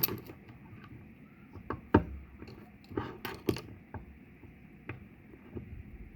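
A handful of sharp clicks and knocks from stainless fittings and tools being handled and tightened onto a pressure-washer injector. The loudest knock comes about two seconds in.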